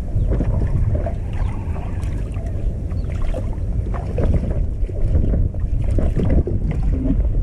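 Wind rumbling on the microphone over water lapping and sloshing.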